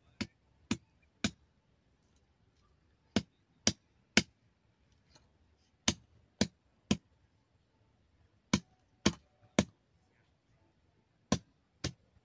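Sharp knocks on a bamboo pole being prepared for a fence, struck in quick sets of three about half a second apart, with a new set every two to three seconds.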